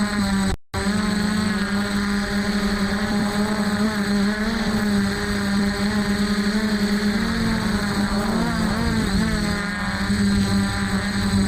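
DJI F450 quadcopter's four electric motors and stock propellers running in flight, a steady whine whose several pitches drift up and down and cross each other as the motors change speed. The sound drops out completely for a moment about half a second in.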